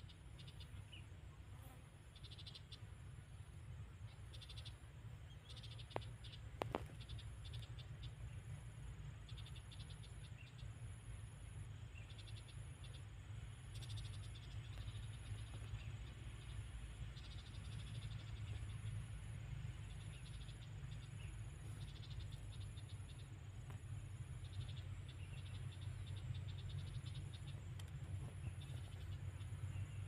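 Calling insects: a very high pulse repeating about once a second, with irregular bursts of faster chirping, over a steady low rumble. Two sharp clicks come about six seconds in.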